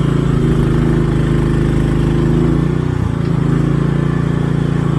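Engine running steadily, its pitch dipping briefly about three seconds in before it settles again.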